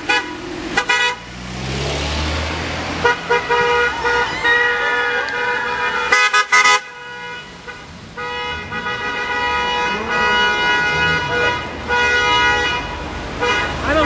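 Passing cars honking their horns: short toots about a second in and again around six seconds, and longer held honks through most of the rest, over the sound of street traffic.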